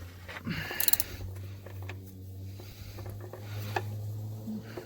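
A few light metallic clicks and knocks from handling a socket wrench at the oil drain plug under a pickup truck, clustered near the start with one more near the end, over a steady low hum.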